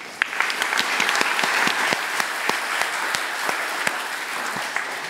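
Audience applauding: many hands clapping steadily, thinning and fading near the end.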